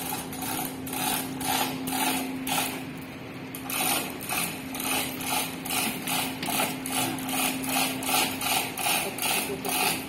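Repeated hand-tool strokes on metal engine parts, about two a second, quickening a little about four seconds in, over a steady low hum.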